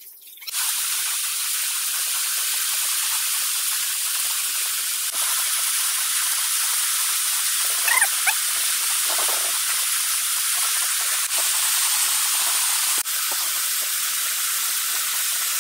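Steady hiss of a jet of spraying air, starting about half a second in and broken only briefly at a few cuts, with a couple of short squeaks about halfway through.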